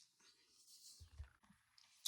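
Near silence: faint room tone, with a soft low thump about a second in.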